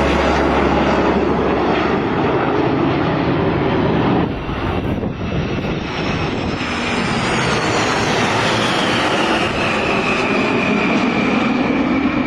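Jet aircraft flying past with a loud, steady rushing engine noise. In the second half a whine falls slowly in pitch as the jet goes by.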